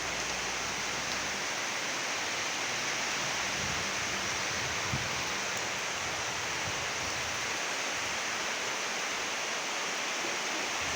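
Steady rainfall, an even hiss that holds unchanged throughout.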